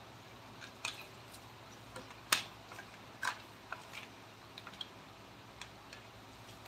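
Irregular light taps and clicks of hand tools on wood, with two sharper knocks a couple of seconds in, over a faint steady hum.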